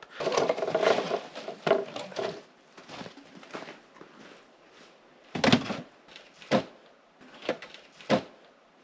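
Firewood being handled: scraping and rustling of logs at first, then several separate hollow wooden knocks and clunks about a second apart.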